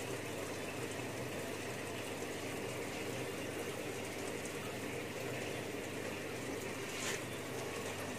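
Water running steadily into a shallow tub, with a brief light splash about seven seconds in.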